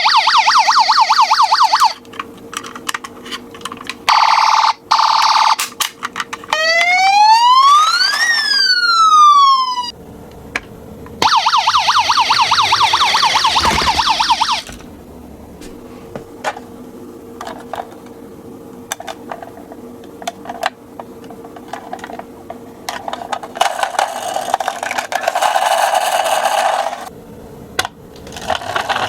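Electronic siren sound effects from a toy ambulance minicar: a fast warbling siren at the start, a steady tone about four seconds in, one rising and falling wail about seven seconds in, and another fast warble about eleven seconds in. Scattered sharp plastic clicks run between them, with a rougher, noisier sound near the end.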